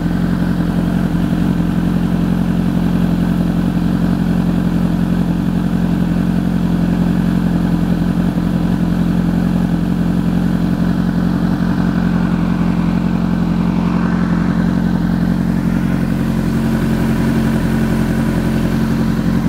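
Honda CBR1000RR's inline-four engine idling steadily at full operating temperature while air is bled from its freshly refilled cooling system. The coolant is at about 222, and the owner suspects an air bubble in the system.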